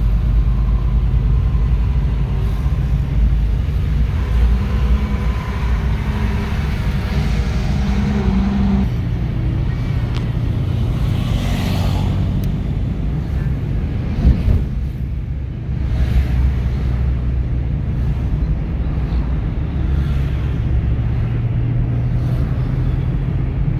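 Steady low engine and road rumble heard from inside a moving car's cabin. The engine note changes about nine seconds in, and there is a brief swell of noise around the middle.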